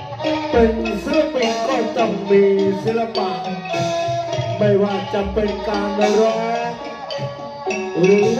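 Thai classical dance music from a traditional ensemble: mallet percussion like a xylophone under a melody that glides and bends in pitch.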